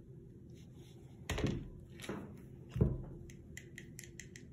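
Two dull knocks about a second and a half apart, the second the louder, then a quick run of faint light clicks near the end. It is handling noise from a child's arm moving over the table close to the microphone.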